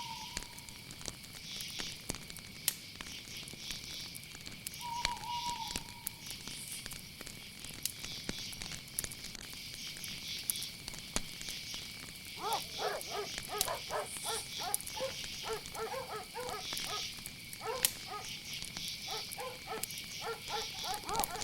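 Crickets chirping steadily, with the sharp pops and crackles of a wood fire. About halfway through, a dog starts barking repeatedly.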